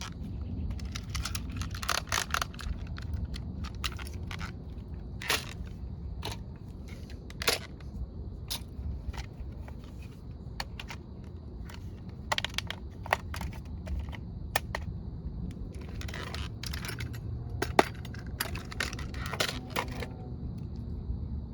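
Remote-control toy excavator at work: a steady low hum and a faint high whine under many sharp clicks and crunching scrapes.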